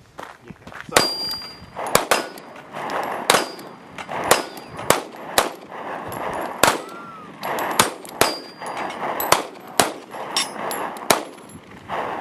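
A pistol fired about a dozen times at an uneven, unhurried pace of roughly one shot a second, with steel targets clanging and ringing after the shots.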